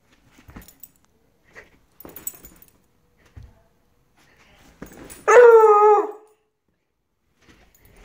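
Redbone Coonhound puppy baying: a single drawn-out howling note about five seconds in, lasting under a second, its pitch dropping slightly at the end. Faint rustles and taps come before it.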